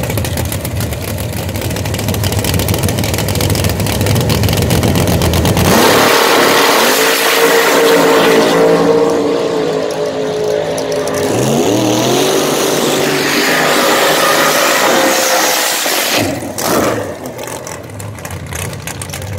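Drag race car engines: a loud rumbling idle, then about six seconds in one engine revs up hard and holds high revs in two long pulls, dropping back and cutting off sharply about sixteen seconds in, leaving a lower idle rumble.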